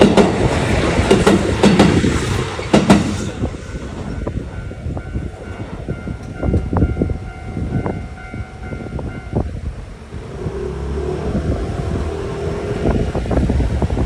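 A train passing close by: a loud rumble with sharp clacks of wheels over rail joints for the first three seconds. A steady high tone then sounds over regularly spaced clacks and cuts off about nine and a half seconds in, leaving a lower rumble.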